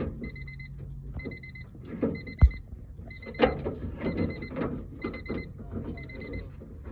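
Short bursts of rapid electronic beeping, repeating about once a second, over scattered metallic clicks and knocks from handling door parts. A sharp knock about two and a half seconds in is the loudest.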